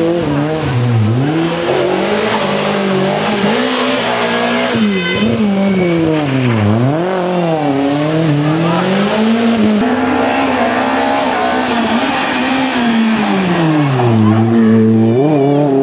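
Renault Clio Williams rally car's 2.0-litre four-cylinder engine driven hard at full throttle, its note climbing and dropping again and again as the car accelerates, lifts off and brakes through successive bends.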